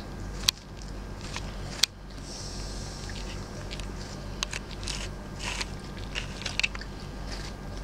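A husky gnawing and biting into a whole pear, with two sharp crunches early on and then a run of smaller crisp crunches in the second half.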